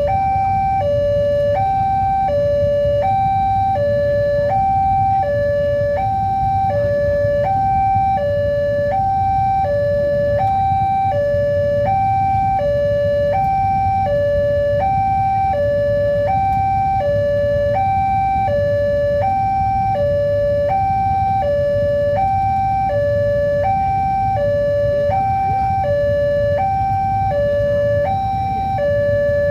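Level-crossing warning alarm sounding continuously, an electronic two-note signal that switches evenly back and forth between a higher and a lower note, with a low rumble underneath.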